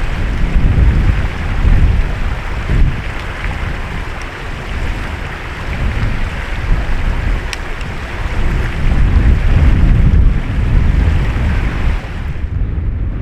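Wind buffeting the microphone in uneven gusts, a low rumble over a steady rushing hiss; the hiss falls away near the end.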